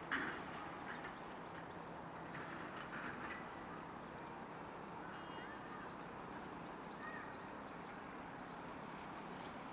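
Outdoor park ambience: a steady low background hum, with a short loud bird call right at the start and a few more short calls around three seconds in.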